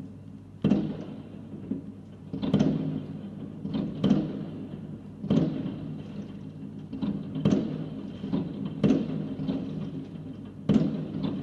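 Fireworks going off: a series of sharp bangs, roughly one every second or so, each followed by an echoing rumble.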